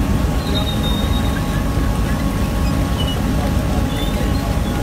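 Fishing boat's machinery running steadily. It makes a constant low rumble with a faint, steady whine above it.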